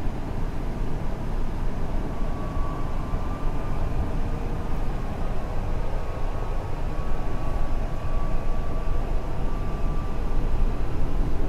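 Mumbai Metro train running, heard from inside the coach: a steady low rumble of the car in motion, with a faint high motor whine that comes and goes and drifts slightly in pitch.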